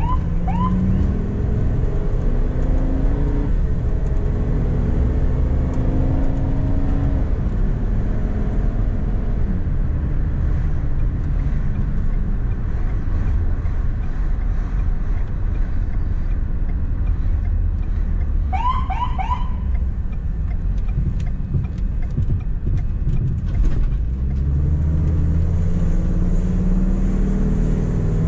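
Road and engine noise inside a moving ambulance's cab: a steady low rumble, with the engine rising in pitch as it pulls away near the start and again near the end. Twice, a quick run of three rising chirps cuts through, once just at the start and once about two-thirds of the way through.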